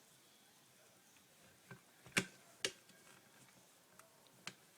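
A few sharp clicks and taps from the parts of a CO2 replica air pistol being handled, the two loudest close together about two seconds in.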